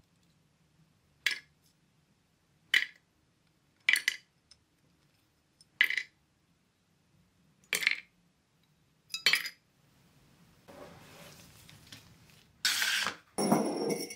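Small diecast toy parts being handled and taken apart, giving single sharp clicks and clinks every second and a half or so. Near the end, a brief rustle and then a glass jar set down on a wooden tabletop with a clunk.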